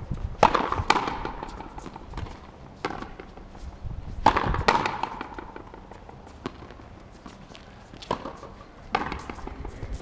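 Frontenis ball being struck with rackets and smacking against the fronton wall in a rally: sharp cracks, some in pairs about half a second apart, each followed by a short ringing echo.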